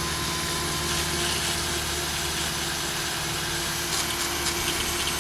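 A handheld power tool spinning a coarse abrasive pad against the differential housing's gasket surface to clean it for sealer. It runs steadily, a whirring whine over a rough hiss of abrasive on metal.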